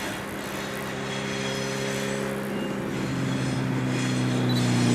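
Diesel locomotive engine running as it approaches, with a steady hum that grows gradually louder.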